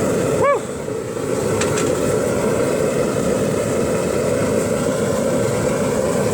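Waste-oil burner firing into a foundry furnace: a steady, really loud roar like a jet engine. About half a second in, a brief high-pitched cry sounds over it.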